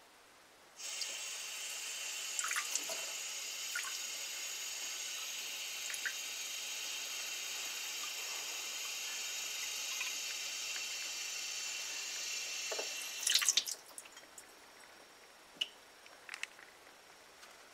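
Kitchen faucet running water into a mug: the stream starts about a second in, runs steadily for about twelve seconds, and ends with a brief louder splash as it is shut off. A few light knocks follow as the mug is handled.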